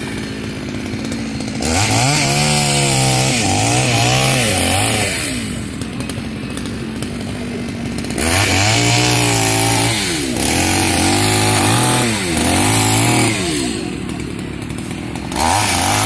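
Chainsaw revving up in three long bursts while cutting fallen tree branches, its pitch rising and dipping under load, and dropping back to a lower running note between cuts.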